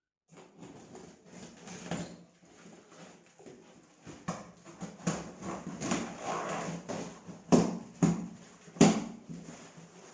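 A cardboard box and its plastic wrapping being torn open by hand: irregular crinkling and ripping, with two sharp, loudest rips near the end.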